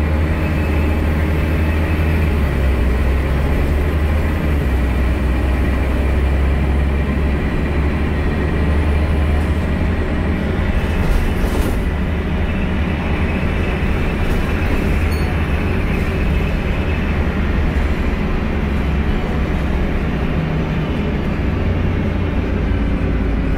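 Scania L113CRL city bus running, its 11-litre six-cylinder diesel giving a steady low drone under a constant noisy hiss.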